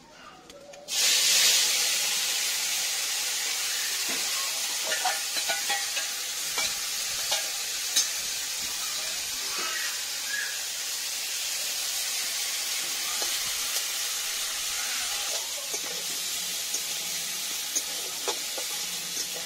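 Small prawns hitting hot oil in a steel wok, starting a loud sizzle about a second in that carries on steadily. A metal spatula scrapes and clicks against the pan as the prawns are stirred.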